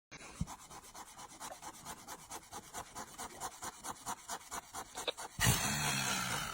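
Rhythmic scratching on a hippopotamus's hide: quiet, evenly repeated scraping strokes, about five a second. About five seconds in, a louder breathy rush with a low rumble comes in over it.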